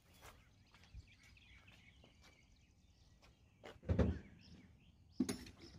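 Faint songbirds chirping outdoors, broken by a dull low thud about four seconds in and a sharp knock just over a second later.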